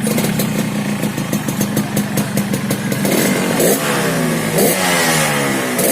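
Yamaha RX-King 135 two-stroke single-cylinder engine through a new exhaust that has not been gutted but carries a modified baffle. It idles steadily for about three seconds, then is revved in quick throttle blips about once a second, the pitch dropping back after each. The carburettor is set rich, which the owner says makes it run with a slight burble.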